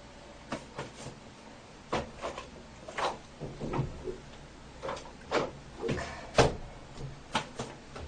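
A series of short knocks and clatters from a wooden bathroom cabinet door being opened and shut and small toiletries being handled and set down, the loudest knock about three quarters of the way through.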